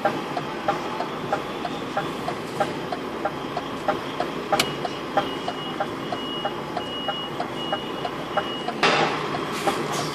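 Even ticking inside a Scania truck's cab, about three ticks a second, like the turn-signal relay. From about halfway a high electronic beep repeats in short pulses, and near the end a sudden loud hiss of air cuts in.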